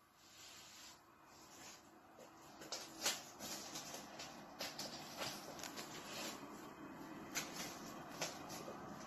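Light scuffs and clicks of a kitten's paws and claws skittering on a laminate floor as it plays with a small toy, with several sharper taps.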